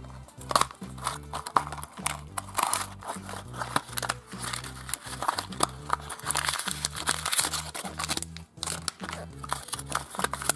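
Packaging crinkling and rustling as a toy surprise packet is torn open and its wrapper handled, with many small sharp crackles, over background music.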